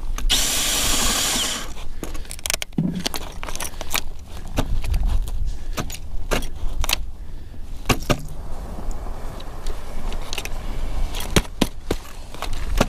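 Ice auger driven by a Milwaukee cordless drill boring into lake ice: a low rumble with many sharp clicks and rattles, and a burst of hiss in the first second or two.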